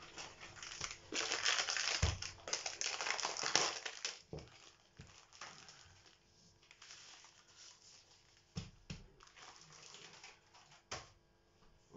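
Plastic food packaging crinkling and rustling as it is cut and torn open, loudest in the first few seconds. It is followed by a few light knocks.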